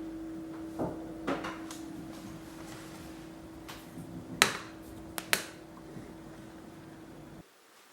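Knocks and clicks of a metal desk lamp being handled as its arm and head are moved, with the loudest knock about halfway through and a quick pair of clicks just after. A steady low hum runs underneath and cuts off suddenly near the end.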